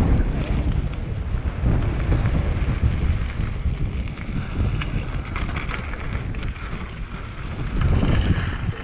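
Wind buffeting the microphone of a camera on a mountain bike descending a downhill trail at speed, with the tyres rolling over gravel and short rattles and clicks from the bike over the rough ground.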